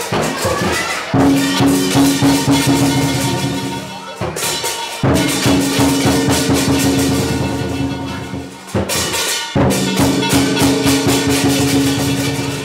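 Lion dance drum and cymbals playing a fast, loud beat with a ringing metallic tone under it. The beat stops abruptly twice, about four and nine seconds in, and comes straight back in after under a second.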